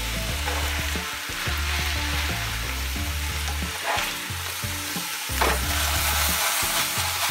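Chicken breasts and sliced mushrooms sizzling steadily in a stainless-steel skillet, with a metal spatula scraping against the pan and a few sharp clinks as the chicken is lifted out. Near the end the pan is shaken to toss the mushrooms.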